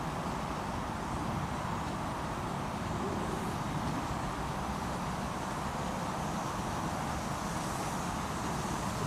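Miniature steam locomotive running toward the listener with its passenger cars, giving a steady mix of engine and wheel-on-rail noise that grows a little louder about three seconds in.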